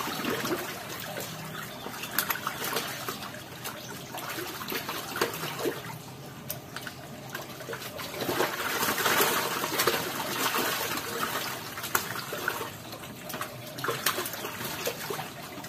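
Water trickling and splashing unevenly, with a louder stretch of splashing about eight to eleven seconds in.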